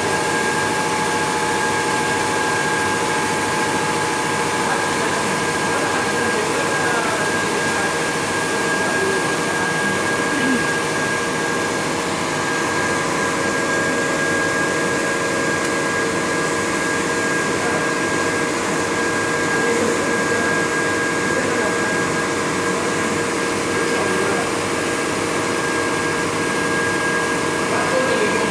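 Shrink-wrap tunnel running steadily: the rushing whir of its hot-air blower fans, with a few fixed whining tones held over the noise.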